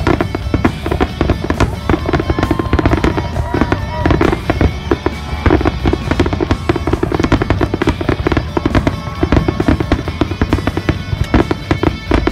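Aerial fireworks shells bursting in quick succession, a dense run of bangs and crackles, with music playing alongside.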